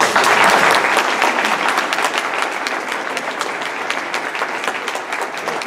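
Audience applauding: a roomful of people clapping, breaking out suddenly, loudest in the first second, then holding steady.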